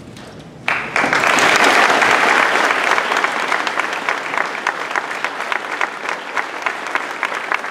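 Audience applause that breaks out suddenly under a second in, loudest at first and then thinning into separate claps.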